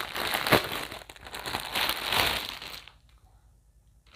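Plastic packaging crinkling and rustling as it is handled and opened by hand, in irregular crackles that stop a little before three seconds in.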